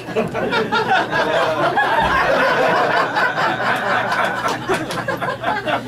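Audience laughing at a punchline: a sustained crowd laugh lasting about six seconds that dies down near the end.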